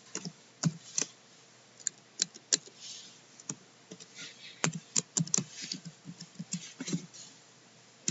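Keys on a CNC control's keyboard pressed one after another, a string of irregular clicks as a program comment is typed in.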